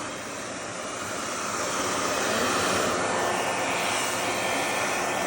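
RevAir reverse-air hair dryer running on setting 3, its fan making a steady rushing whoosh as it sucks air in and blows hot air. The noise grows a little louder over the first couple of seconds, then holds steady.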